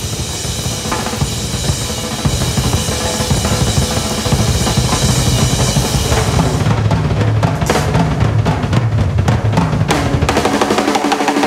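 A jazz drum kit played in a fast, driving solo: dense rapid strokes with drum rolls and cymbals, getting louder over the first two seconds and then holding at full intensity.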